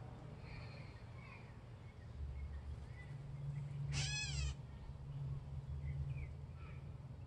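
Gray catbird giving a single cat-like mew call about four seconds in, a nasal note lasting about half a second. A low steady hum runs underneath.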